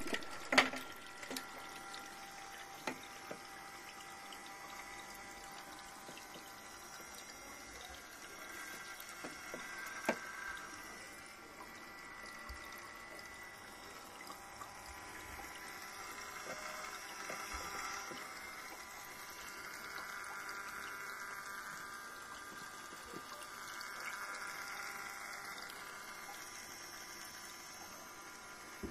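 Modified GEX Multi Auto Cleaner's small electric pump running in an aquarium, keeping the water churning and splashing steadily, with a faint steady whine underneath. A sharp knock about half a second in, and another about ten seconds in.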